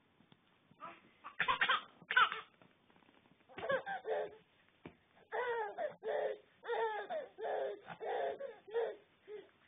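Baby laughing in a string of short repeated bursts, the loudest a pair about two seconds in.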